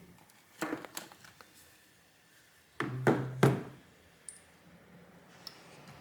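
Small plastic mouse parts handled while a replacement scroll wheel is tried in the mouse shell: a couple of short plastic clicks and knocks under a second in, and a louder cluster of knocks around three seconds in.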